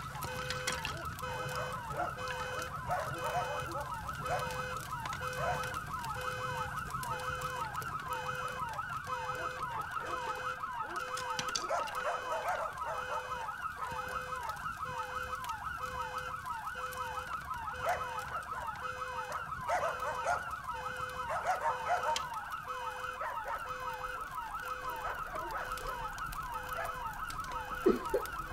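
Several emergency-vehicle sirens sounding at once in a fast rising-and-falling yelp, over a steady on-off beeping tone, with a few short knocks scattered through.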